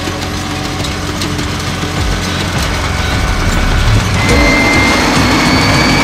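Tractor engine running steadily while pulling a seeder. About four seconds in, a steady high whine joins it and the sound grows a little louder.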